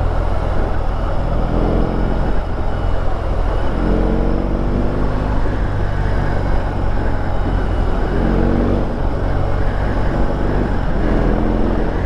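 BMW R18's 1802 cc boxer-twin engine running at low revs in slow traffic, with four short rises in engine pitch.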